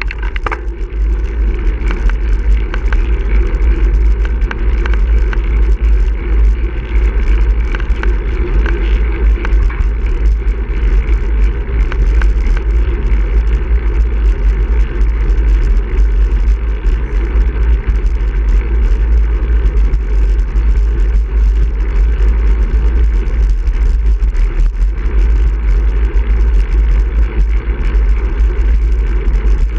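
Wind buffeting the microphone of a handlebar-mounted camera on a moving road bike, over the steady hum of the tyres on asphalt. The noise is loud and even, with no break.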